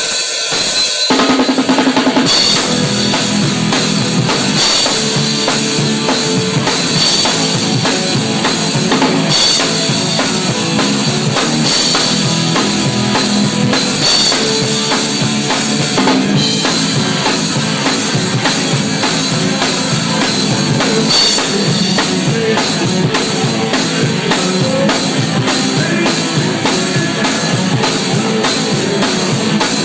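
Drum kit played loudly and without a break, bass drum and snare hits packed densely over a steady high-pitched wash. The playing starts abruptly at the very beginning.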